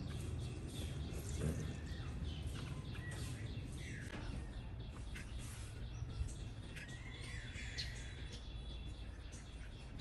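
Birds chirping with short, scattered calls, a few of them sweeping up in pitch, over a steady low background rumble.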